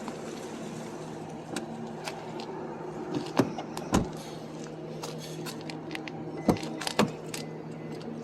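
A 2015 Subaru Impreza's doors being worked: a series of sharp latch clicks and knocks, the four loudest in two pairs about three seconds apart, two of them heavy thumps, over a steady low hum.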